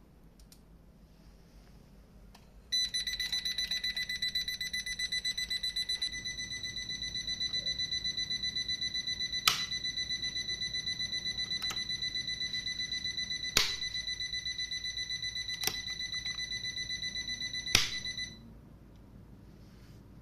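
An electronic buzzer beeps rapidly on one high pitch. It starts about three seconds in and stops shortly before the end. A few sharp clicks sound over it.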